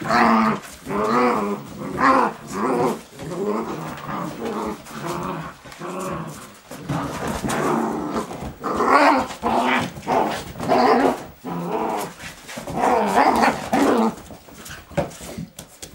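Groenendael Belgian Shepherd puppies growling at each other while play-fighting, in a run of rough growls about once a second with short pauses.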